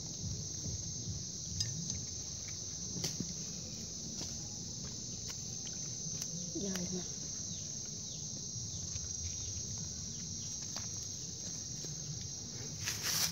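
Insects chirring in a steady, high-pitched drone, with a few faint clicks.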